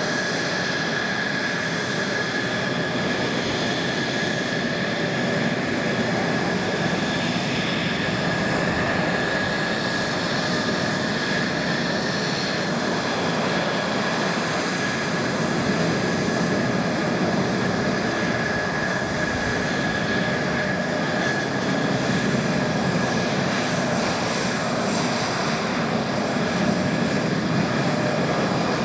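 Jet engines running at taxi idle as Mitsubishi F-2 fighters roll past: a steady rush with a high turbine whine held on one pitch.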